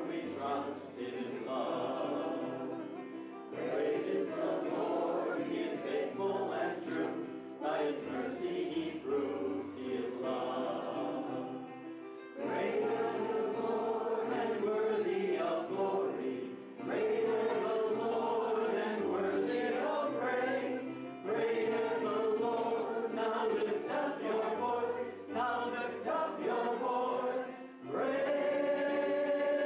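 Congregation singing a hymn of praise together with instrumental accompaniment, in long held phrases over steady bass notes, with short breaks between phrases.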